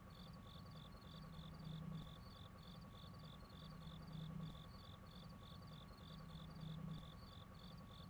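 Faint insect chirping in short, regular pulses, several a second, over a low hum that swells every couple of seconds.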